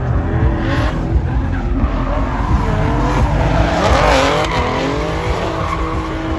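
Car drifting: the engine is held at high revs while the tyres squeal, the squeal wavering in pitch and loudest about four seconds in.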